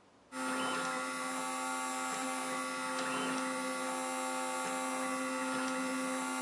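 The drilling spindle of a CNC3018-based PCB drilling machine starts about a third of a second in and runs at steady speed with a high, even whine. A few faint ticks sound over it.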